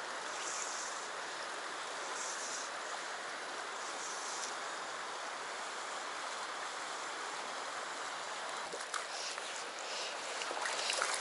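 Mountain stream running over a rocky bed: a steady, even rush of water. A few light clicks and rustles come in near the end.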